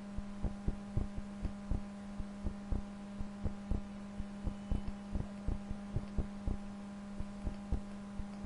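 Computer mouse clicking at a steady pace of about three clicks a second while anchor points are placed, over a constant electrical hum.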